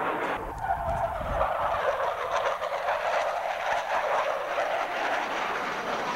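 Military jet aircraft flying past: a falling whine with a deep rumble about half a second in as a jet goes by, then a steady jet roar.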